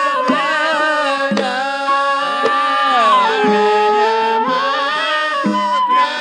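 A male voice singing a Sufi religious qasida in the Hadrami inshad style, with long, sliding, ornamented melodic lines, over hand-drum beats.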